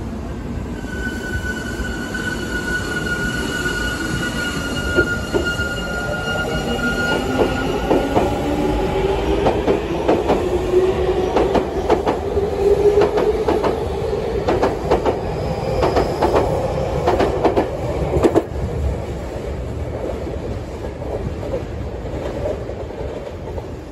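A Tokyu 5080-series electric train pulls out of the station. There is a high steady whine for the first several seconds, then a motor hum that rises in pitch as it gathers speed. A run of wheel clacks over rail joints follows as the cars go past, and the sound fades near the end.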